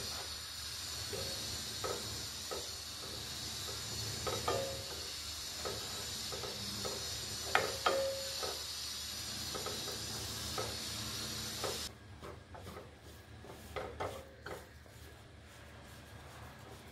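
Wooden spatula stirring and scraping besan roasting in ghee in a nonstick pan, in short irregular strokes. A steady sizzling hiss runs under the strokes and cuts off suddenly about two-thirds of the way in, leaving only the scraping.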